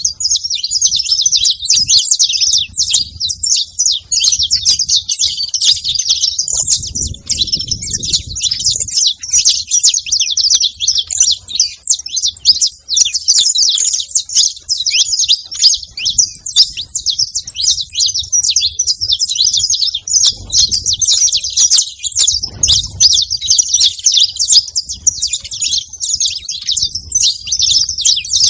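A flock of saffron finches chirping and calling all at once, many short high chirps overlapping into a dense, unbroken chatter.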